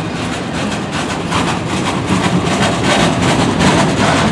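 Freight train boxcars rolling past close by: a steady rumble of steel wheels on rail with a rapid run of clicks, growing a little louder about two seconds in.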